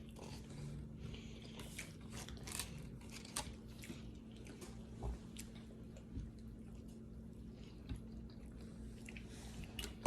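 Chewing and biting on chili cheese dogs, heard up close: soft, wet mouth sounds with small smacks and clicks at irregular intervals, fairly quiet.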